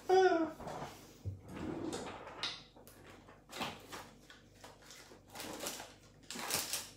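A short vocal sound at the start, then faint scattered knocks, rustles and scrapes of someone moving about and rummaging through things.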